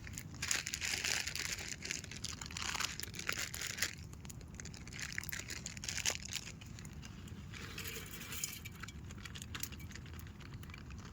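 A sack rustling and crinkling as it is handled, in three bursts with small clicks between them.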